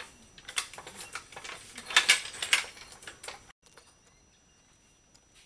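Hydraulic floor jack being pumped by its long handle, giving a run of irregular metal clicks and clanks as the handle works in its socket. The clicking stops abruptly about three and a half seconds in, leaving faint room tone.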